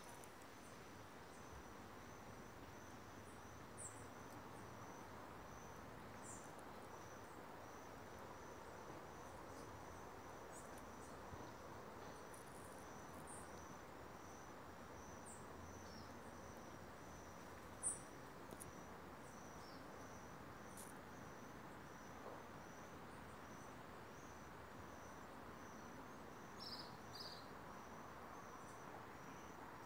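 Faint outdoor ambience with an insect chirping, a high thin pulse repeating evenly without a break. A few short, higher chirps stand out over it, the loudest about two-thirds of the way in.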